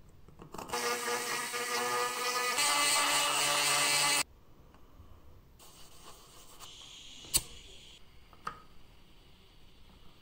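A small electric motor whirring for about three seconds. It gets louder partway through and cuts off suddenly. It is followed by quiet scraping and rubbing, with one sharp click.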